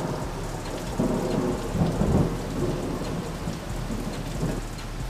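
Heavy rain pouring down. About a second in, a low rumble of thunder rises over it and rolls on until near the end.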